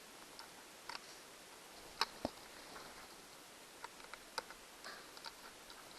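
Scattered light clicks and taps of small screws and a screwdriver being handled during laptop back-cover reassembly, with the sharpest pair of clicks about two seconds in.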